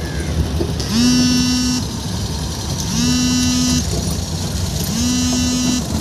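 A moving car's engine and road rumble, with a loud electronic tone that lasts just under a second and repeats every two seconds, each time rising briefly and then holding one pitch.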